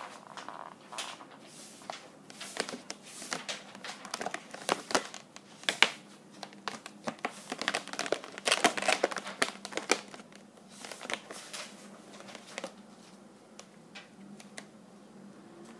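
Inflated latex twisting balloons rubbing and squeaking against fingers and each other as a finished balloon sculpture is handled and adjusted. The result is an irregular run of short squeaks and rubs, busiest around the middle and dying down near the end.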